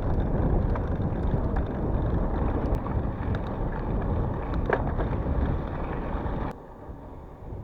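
Riding noise from a mountain bike on a dirt track: wind rushing over the microphone and tyres rolling, with a few small ticks and rattles. The noise drops off suddenly about six and a half seconds in, leaving a quieter rumble.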